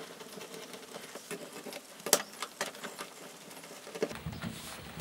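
Crosshead screwdriver working out the bolts on a Mk1 MX-5's door-card armrest: a string of small clicks and scrapes of metal tool on screw and plastic trim, the sharpest click about two seconds in.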